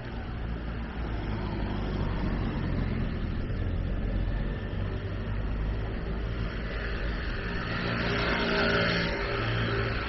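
A motor vehicle's engine running close by, a steady low hum, with a louder rush of noise about eight seconds in as traffic passes.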